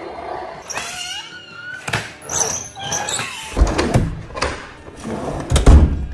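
Hard plastic knocks and clunks of a toy fire truck being handled on a table as its ladder is swung up, the two loudest heavy thumps near the middle and the end. Some wavering squeaky tones sound in the first two seconds.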